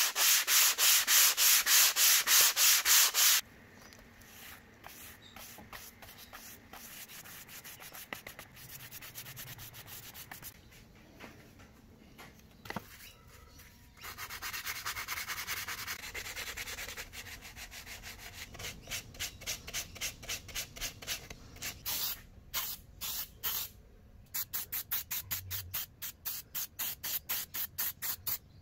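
A sanding block rubbed briskly back and forth over a laser-cut MDF sheet, about four strokes a second. After a few seconds it gives way to softer, uneven rubbing of paper over the cut pieces, and a run of short regular strokes comes near the end.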